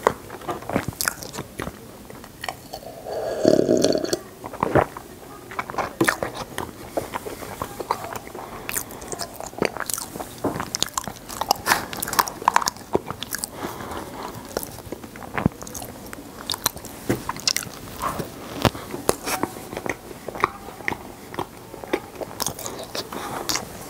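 Close-miked biting and crunching of frozen Ice Box ice chunks, with many sharp, irregular crunches. A louder, lower sound lasting about a second comes a few seconds in.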